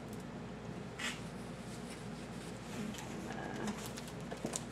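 Brief rustle about a second in as a rolled paper diamond-painting canvas is picked up and handled, then a few light taps and clicks, over a low steady hum.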